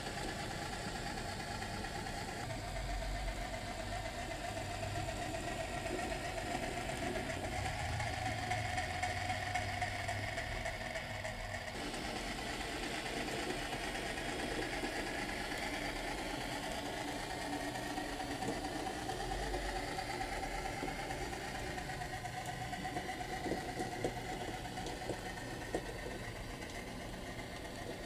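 Model HO scale diesel switcher locomotive running, its onboard sound system playing a steady diesel engine drone with slowly shifting pitch.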